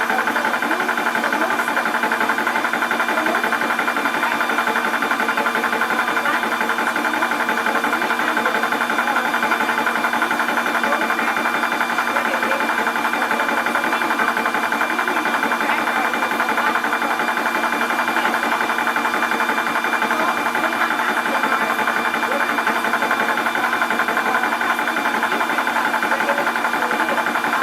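Portable 12-volt high-pressure PCP air compressor running steadily, pumping with a fast, even beat over a steady hum as it fills a cylinder.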